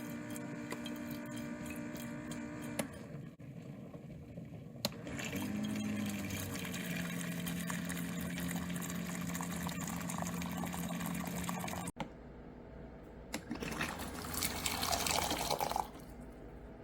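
Hot water running from the electric urn's dispenser into a cup, a splashing pour over a steady hum. It stops and starts again abruptly about 3 and 12 seconds in.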